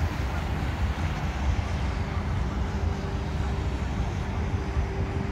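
Low, steady outdoor rumble of wind and distant engine noise, with a faint steady motor drone that comes in about two seconds in, fitting the small motorboat crossing the river.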